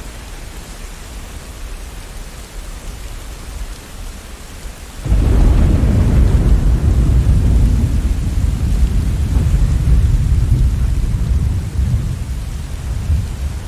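Steady rain, then a sudden loud roll of thunder about a third of the way in, a deep rumble that goes on for several seconds and slowly fades.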